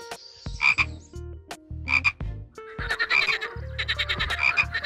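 Frog croaking: two short croaks in the first two seconds, then from about three seconds in a continuous croak made of rapid, evenly spaced pulses.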